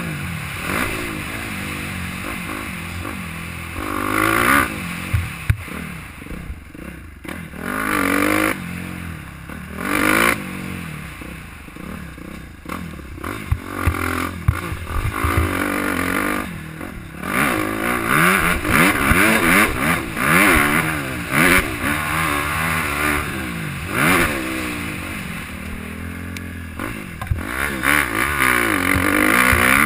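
Suzuki dirt bike engine revving up and falling back again and again as it is ridden hard on a motocross track, with scattered clattering knocks from the bike.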